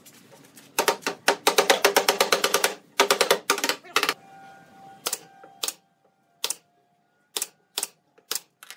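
Quick, rapid rasping strokes of a hand sanding block worked back and forth on the pine top frame, in dense runs. Then, over the last few seconds, a nail gun fires single sharp shots one after another, about half a second to a second apart, setting brads into the doorway trim.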